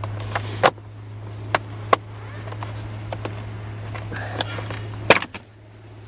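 Plastic steering column covers being pulled apart by hand: several sharp clicks and snaps as the retaining clips let go, the loudest about five seconds in, over a steady low hum.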